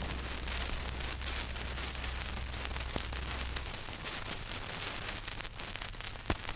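Surface noise of a 1940s sound-effects transcription disc: steady hiss with light crackle, scattered ticks and a low hum that drops out about halfway, with a sharp tick near the end. It opens on the last of the fading of a loud boom.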